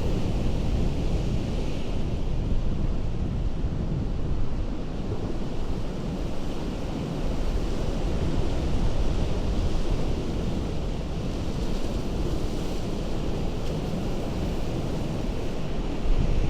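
Ocean surf breaking against a rocky coast: a continuous low rush of waves that swells and eases, dipping a little in the middle before building again.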